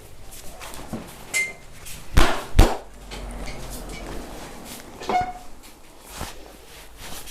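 Sharp smacks from a head and body massage, two loud ones in quick succession a little after two seconds in, with a few lighter knocks before and after.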